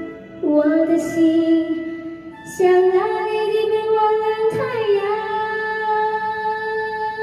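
A female voice sings three long held notes over a musical accompaniment, each note a little higher than the one before.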